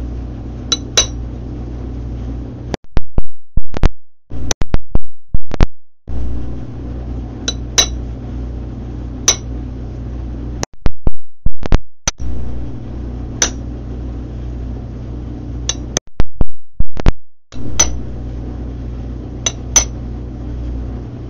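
Cobbler's hammer striking a metal broguing punch held against a leather boot sole, stamping a decorative pattern around the sole edge: scattered single taps with three runs of quick, loud taps, about three, eleven and sixteen seconds in. A steady low hum sits underneath.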